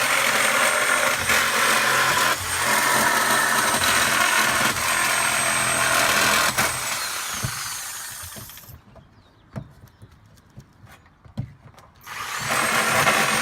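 Power tool running at steady speed with a high whine, winding down about seven seconds in. After a few light knocks it starts up again near the end.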